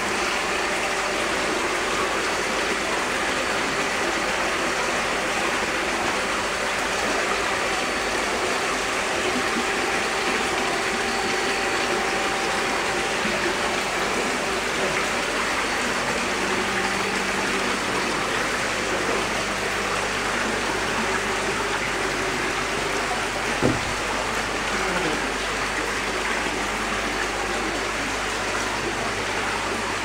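Water pouring steadily from inlet pipes and splashing into concrete koi holding tanks. One brief knock about three-quarters of the way through.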